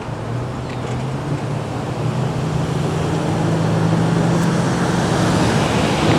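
Low, steady engine drone from a vehicle at the railroad crossing, over road noise, growing louder.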